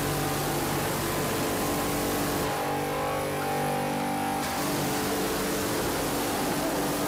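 High-pressure washer running, its water jet hissing against a motorcycle over the steady hum of the pump. The spray cuts off for about two seconds in the middle, then comes back on.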